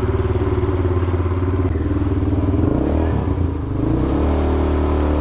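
New 200cc ATV engine running at low revs, still in its break-in period; its note dips and shifts about three seconds in, then steadies again.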